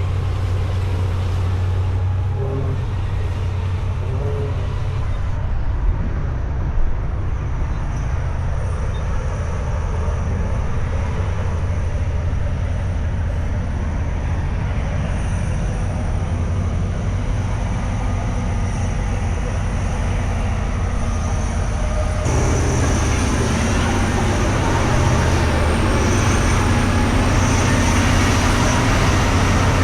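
Steady low rumble of heavy vehicles running, changing abruptly about five seconds in and again about 22 seconds in.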